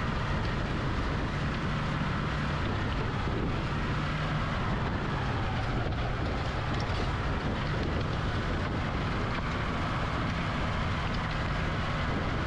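Tractor engine running steadily as it drives a rotary tiller through a flooded rice paddy in wet puddling.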